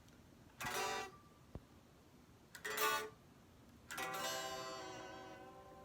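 Three chords strummed on a plucked string instrument. The first two are cut short; the third, about four seconds in, is left ringing and fades away.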